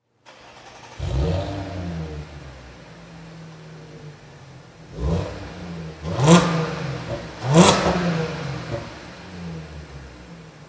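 Audi SQ5's supercharged 3.0-litre V6 through a Milltek valved cat-back exhaust with the valves closed (comfort mode). It fires up about a second in and settles to idle, then is revved three times, the last two blips the loudest, and drops back to idle.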